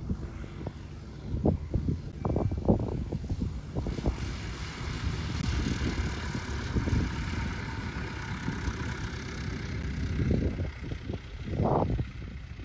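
Light propeller plane, a Piper Cub, passing close on its landing rollout, its engine heard as a steady hum swelling and fading over several seconds. Gusts of wind buffet the microphone throughout, and these are the loudest bumps.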